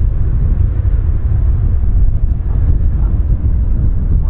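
Strong wind buffeting the microphone: a loud, unsteady low rumble.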